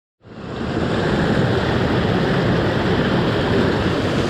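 Mountain creek water rushing over rocks: a steady, loud rush that fades in just after the start and holds.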